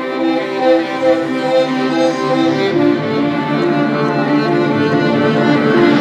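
Background music: bowed strings playing a melody of short stepped notes, with a low held note coming in about halfway through.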